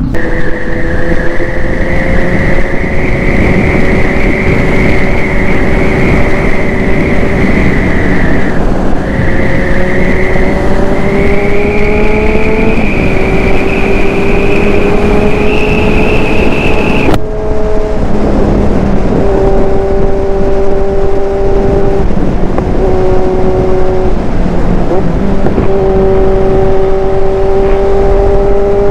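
Big-bike motorcycle engine pulling hard at highway speed with wind noise. The engine pitch climbs steadily, drops briefly at a gear change and climbs again. After the middle it settles into a steady cruise, with short dips where the throttle is eased.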